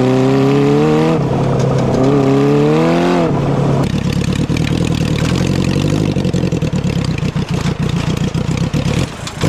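Lawnmower fitted with a 650cc motorcycle engine accelerating hard: the engine note climbs, dips as it shifts about a second in, and climbs again. About three seconds in the throttle comes off and the engine drops to a choppy, uneven rumble as the mower slows.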